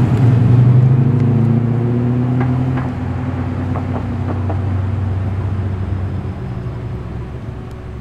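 V8 engine of a Holden VH Commodore SS Group 3 pulling away in low gear with a deep exhaust note. It is loudest about half a second in, then fades steadily as the car moves off.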